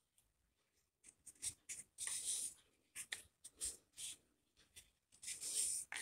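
Net yarn being arranged and tucked around a cardboard paper-towel tube: irregular short dry rustles and scrapes of yarn and fingers rubbing on the cardboard, starting about a second in.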